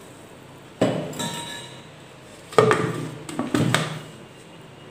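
Plastic mixer-grinder jar handled and its lid pressed on: a sharp knock with a brief ring about a second in, then a quick cluster of plastic clunks and clicks around three seconds in.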